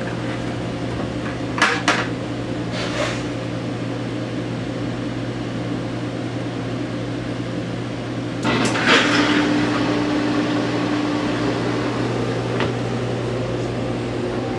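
Steady low machinery hum in a rail car's stainless-steel kitchen, with a few light clicks about two and three seconds in. About eight and a half seconds in a louder whirring sets in, carrying a steady tone for about three seconds.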